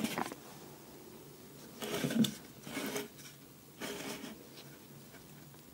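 A few short rubbing, rustling handling sounds, about four in all, over a faint steady hum.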